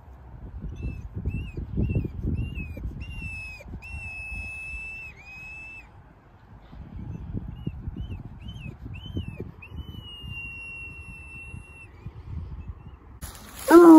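Bluetick coonhound whining: high-pitched short rising-and-falling whines, then longer held ones, in two bouts. Near the end it breaks into a loud, deep bay.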